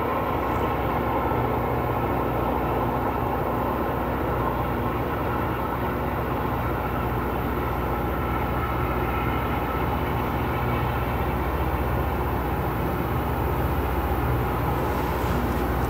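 Loram rail grinder train working along the track: a steady mechanical drone and rushing noise that swells slightly near the end.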